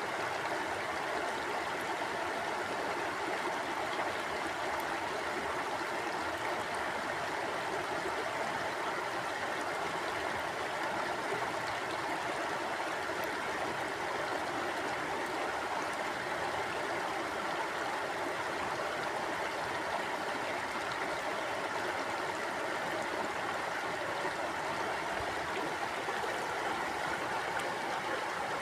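Stream water flowing steadily over rocks, a constant rushing and gurgling.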